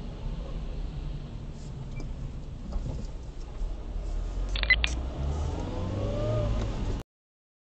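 Car driving in city traffic, heard from inside the cabin through a dash cam: steady low road and engine rumble, with a brief clatter of clicks about halfway through and a faint rising tone near the end. The sound cuts off abruptly about a second before the end.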